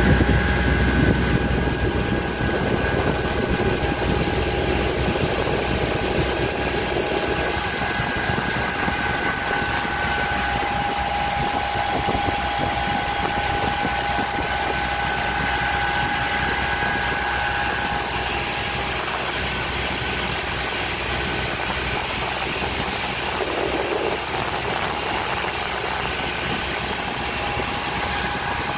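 Motorboat engine running steadily while the boat cruises, with a steady high whine over a rushing hiss of wind and water.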